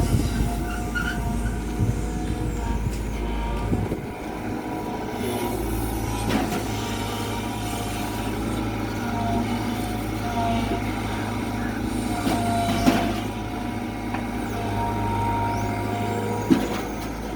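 Kobelco Yutani SK120 excavator working, its diesel engine running steadily with a wavering whine over it. A few sharp knocks come through: about six seconds in, around thirteen seconds and once near the end.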